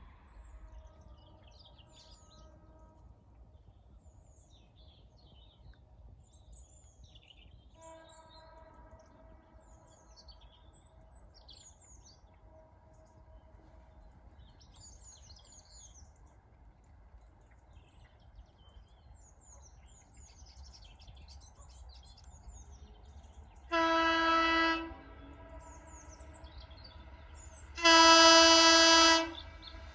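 Electric train horn sounding two loud blasts of about a second each, four seconds apart and at the same pitch, the second louder. Earlier there are fainter, longer horn notes from farther off. Birds chirp throughout.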